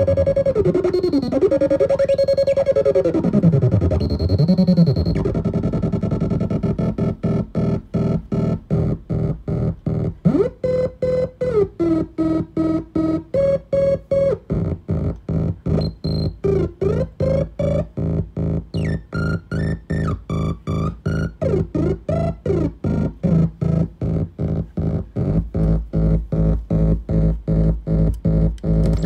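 Homemade three-oscillator noise-box synthesizer playing, its pitch gliding up and down as the knobs are turned. About seven seconds in it breaks into a fast, even pulsing, with tones stepping and sliding over the pulse.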